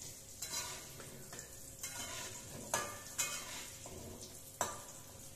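Metal slotted spatula scraping and knocking against a steel wok about five times while food fries in hot oil with a steady sizzle.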